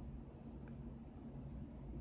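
Two faint light clicks of small repair tools on the tiny internal parts of an opened smartphone, over a low steady hum.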